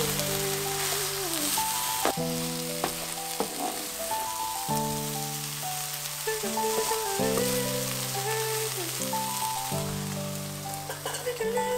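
Eggplant, tomato and mince sizzling in a frying pan as they are stirred with a wooden spatula, with a few sharp clacks of the spatula against the pan. Near the end a metal lid clinks onto the pan. Background music with held chords plays over it.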